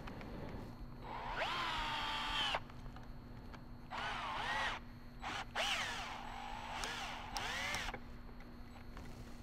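A drill fitted with a nut driver is tightening the screws of hose clamps. The motor whines in about four short runs, each rising in pitch as it spins up, and in some runs the pitch sags and recovers as the clamp screw takes up load.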